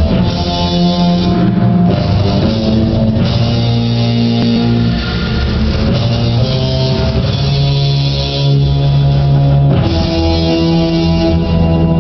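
Loud rock music with guitar and drum kit, its held notes shifting to a new chord a couple of seconds before the end.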